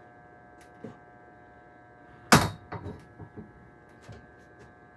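A loud knock a little over two seconds in, followed by a few lighter knocks and clatters over the next second or two, as the door closer's metal hardware is handled during installation.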